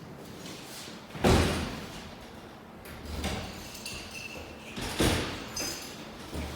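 Four sharp knocks or thumps, the first, about a second in, the loudest, with light metallic clinks between them.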